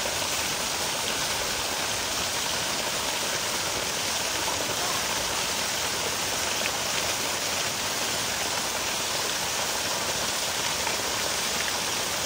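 Steady, even water noise, a continuous hiss with no breaks or distinct drops.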